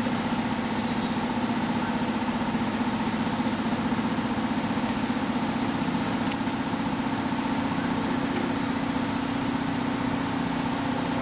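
A motor running, an unchanging steady hum.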